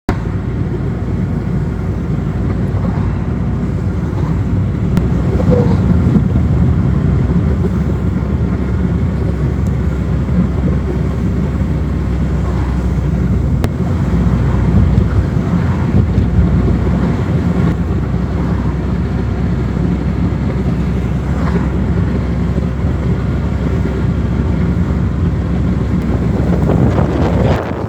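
Strong gusty wind buffeting the microphone: a loud, continuous low rumble with no break.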